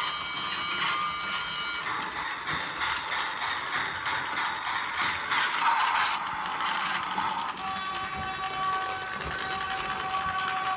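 Toy electric steam train running, its small motor and plastic gears giving a steady whirring clatter, with thin high steady tones over it that change a couple of times.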